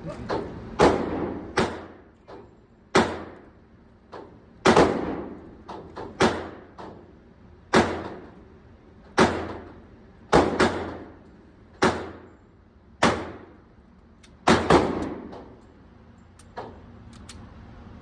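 Pistol shots fired one after another on an indoor range, about fifteen in all, mostly a second or so apart with a couple of quick doubles. Each shot rings off the walls.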